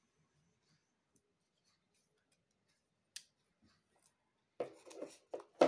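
Plastic shrink wrap on a big board-game box being slit with a folding knife and worked open by hand. Faint at first, then a single sharp click about three seconds in and a quick cluster of crinkles and knocks near the end.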